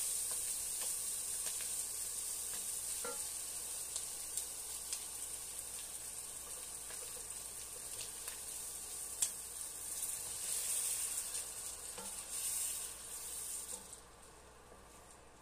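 Diced meat, mushrooms and onions sizzling as they fry in an enamelled cast-iron pan, with a wooden spoon stirring and clicking against the pan. Near the end the sizzle suddenly drops to a quiet hiss as evaporated milk goes into the pan.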